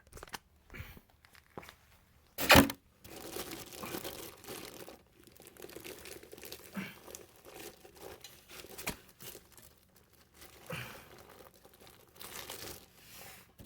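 Ceiling-fan packaging rustling and crinkling as the fan is handled and unwrapped, with one sharp knock about two and a half seconds in.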